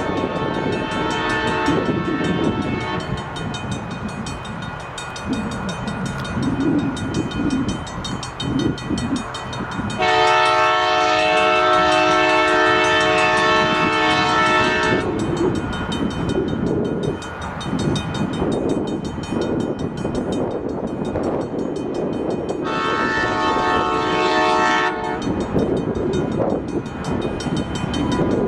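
Diesel locomotive horn of the lead unit, a CN GP38-2W, sounding for the grade crossing as it approaches. There are three blasts: one fading out about 3 seconds in, a long loud one from about 10 to 15 seconds, and a shorter one about 23 seconds in. A low rumble from the approaching train runs underneath.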